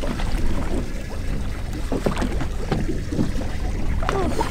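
Wind rumbling on the microphone aboard a drifting boat, with a few short, low grunts of effort from an angler straining against a hard-pulling grouper on a bent rod.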